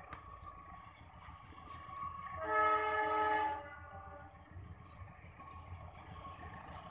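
Horn of an approaching passenger train's locomotive: one blast of a few steady tones together, about a second long, starting about two and a half seconds in. It is the Indonesian railways' Semboyan 35 signal, warning of the approaching train, over a faint low rumble.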